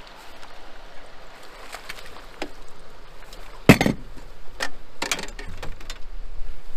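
Steady river current and wind noise with a handful of sharp knocks and splashes as a steelhead is netted beside an aluminum boat; the loudest knock comes a little past halfway, with a quick cluster of smaller ones after it.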